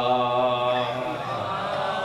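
A man's voice chanting, holding one long steady note that breaks off about a second in, then gliding up and down into a slower melodic phrase.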